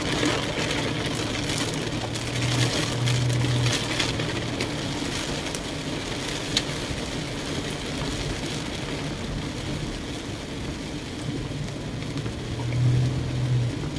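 Rain and wet-road tyre hiss heard from inside a moving car, steady throughout, under a low engine hum that swells twice.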